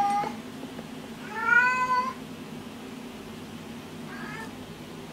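A domestic cat meowing: one meow tails off right at the start, a clear longer meow rising slightly in pitch comes about a second and a half in, and a short faint one follows about four seconds in.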